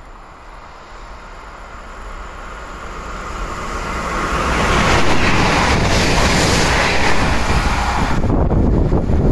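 SNCF Z 56300 electric multiple unit approaching and passing through the station at speed: a rush of wheel and air noise that builds steadily, peaks about five seconds in and holds as the train goes by, then thins to a low rumble near the end.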